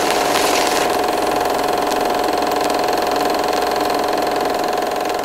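A small machine running steadily: a fast, even rattle over a constant mid-pitched hum.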